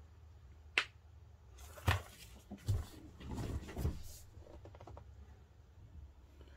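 Pages of thick watercolour paper in a handmade journal being handled and turned: a sharp click just under a second in, then a couple of seconds of paper rustling with a few light knocks.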